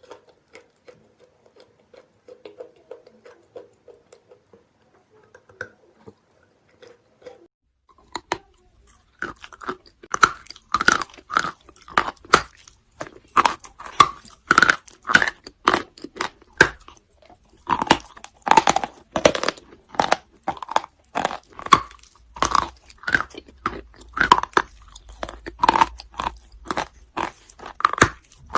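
Close-miked crunchy chewing of chalk and clay. It starts with faint crackles, and about eight seconds in loud, even crunches begin at about one and a half a second.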